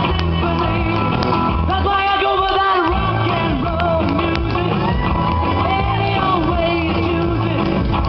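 A man singing into a microphone over amplified rock-and-roll music with a steady bass line, holding long wavering notes.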